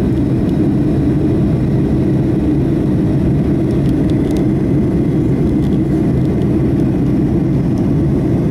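Steady low rumble of a Boeing 757-223's jet engines, heard from inside the passenger cabin.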